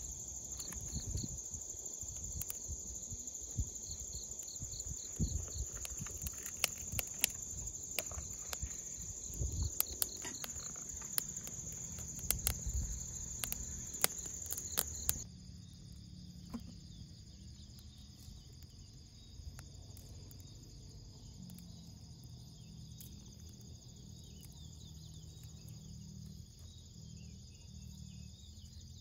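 Steady chirring of crickets and other night insects, with many sharp crackles and snaps from the small twig campfire and twigs being handled during the first half. About halfway through, the crackling stops and the insect chorus changes abruptly in pitch.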